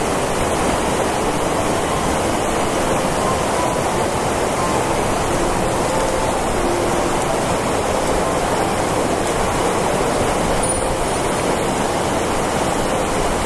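River water rushing steadily over rocks: a full, even roar of a stream running close by.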